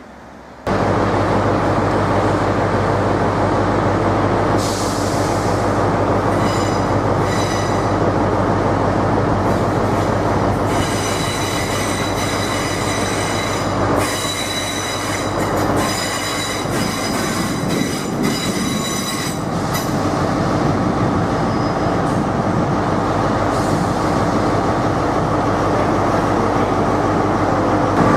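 Train running close by with a steady low drone. From about a third of the way in to about two-thirds through, the wheels squeal with high-pitched tones.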